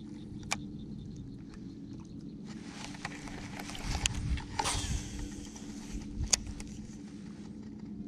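A steady low motor hum, with a few sharp clicks and a louder rush of noise with knocks about halfway through.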